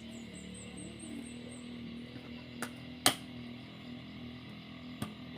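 Two sharp clicks or knocks about half a second apart, and a fainter one near the end, over a steady low hum. A high chirping trill sounds in the first second or two.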